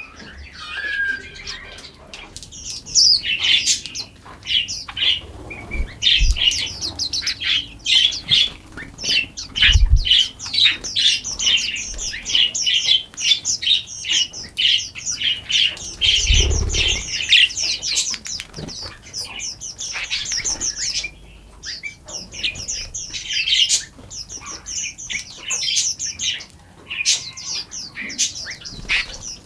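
Forest songbirds chirping and singing in a dense chorus of quick, high chirps and trills that overlap almost without pause. A few short low thumps come through about a third and halfway in.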